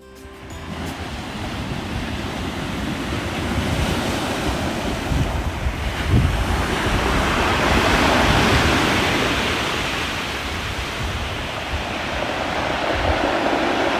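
Ocean surf breaking on the shore: a continuous wash of waves that swells to its loudest about eight seconds in, then eases and rises again near the end. Wind buffets the microphone with low rumbles.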